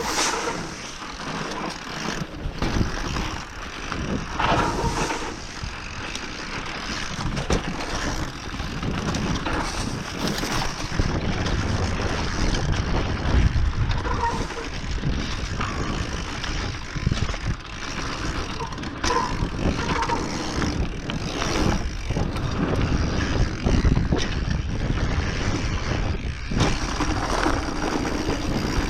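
Mountain bike ridden along a bumpy dirt forest trail: steady tyre rumble and wind noise on the microphone, with short knocks and clattering as the bike hits bumps.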